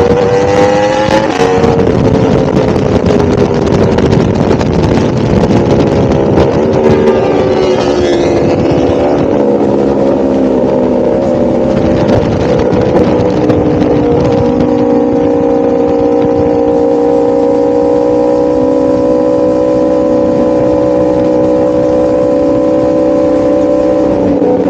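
1000cc motorcycle engine running under way. Its pitch rises and falls through the first half, then holds steady at a constant cruise for the second half.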